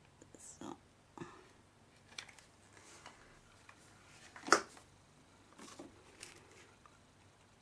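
Quiet handling noises of craft work: scattered small clicks and rustles as the glider's tail wing is pressed in place with hot glue, with one sharper click about four and a half seconds in.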